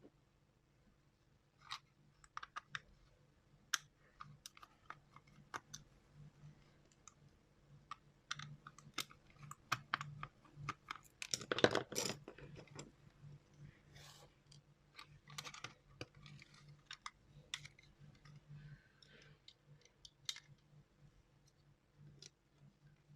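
Faint, scattered clicks, taps and scrapes of a plastic computer mouse shell and small tools being handled while it is taken apart, with a denser burst of scraping and rattling about twelve seconds in. A low steady hum runs underneath.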